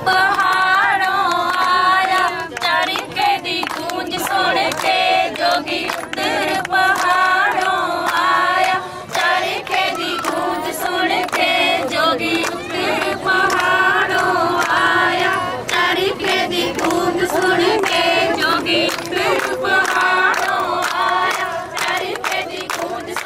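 A group of women singing a Punjabi folk song together in unison.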